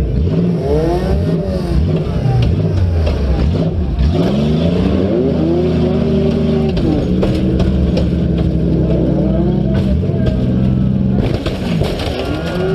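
Demolition derby cars' engines revving up and down, overlapping, with sharp knocks and clanks throughout.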